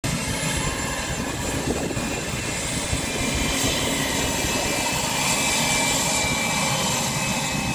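Twin-engine business jet taxiing past at low power, its rear-mounted jet engines giving a steady high whine over a low rumble.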